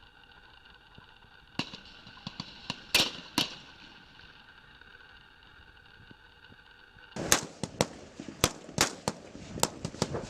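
Rifle shots on a firing range from several shooters, at irregular intervals. A few scattered shots come first, two louder ones about three seconds in, then a quicker, louder string of shots from about seven seconds on.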